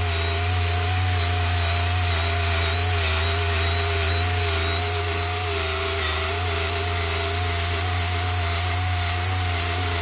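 AC Delco cordless mini rotary polisher running steadily with its foam pad on car paint. The motor gives a constant whine with a slight waver in pitch. It is running on a half-flat battery that sounds about to give up.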